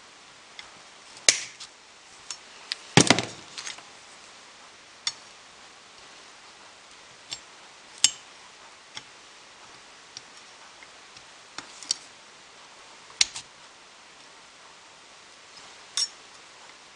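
Sharp clicks and clinks of needle-nose pliers working the small metal terminals on a Lucas 15AC alternator's end bracket, scattered a second or more apart. The loudest is a quick rattle of knocks about three seconds in, like a tool set down on the bench.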